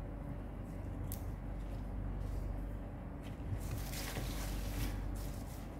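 Hands sorting fresh arugula (gergir) leaves in a plastic basin: soft rustling and crinkling of the leaves, busiest about four seconds in, over a steady low hum.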